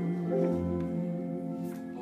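Recorded music played through Zingali Twenty Evo 1.2 horn loudspeakers: held, ringing instrumental notes that slowly get quieter.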